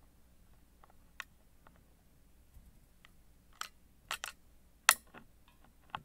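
Small metallic clicks of a lock pick and the pins inside a Mottura Champions C43 Plus dimple euro cylinder held under tension: a few faint ticks, then a cluster of sharper clicks in the second half, the loudest about five seconds in. These are pins setting or dropping back; the picker thinks pin 4 set and pin 5 dropped.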